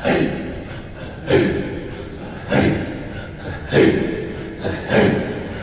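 Five slow, evenly spaced deep drum beats, about one every 1.2 seconds, each ringing out. This is the instrumental gap between sung lines of a Turkish Sufi hymn (ilahi).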